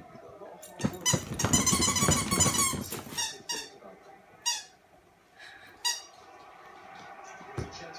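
Squeaky dog toy squeezed repeatedly by a puppy's jaws as he digs in his toy box: a quick run of high squeaks about one to three seconds in, then four short single squeaks.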